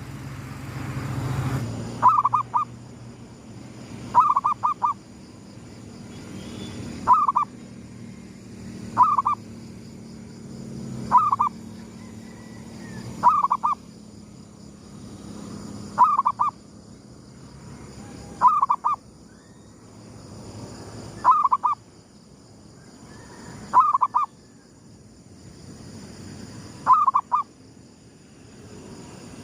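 Zebra dove (perkutut) cooing its song: a short phrase of a few quick notes, repeated about every two to three seconds.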